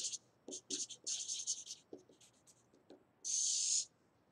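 Felt-tip marker writing on paper: a run of short scratchy strokes, then one longer, louder stroke a little over three seconds in.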